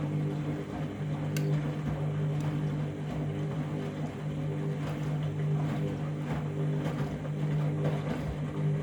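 Candy washing machine running its final rinse on a load of bedding: a steady motor hum with water sloshing and churning in the drum.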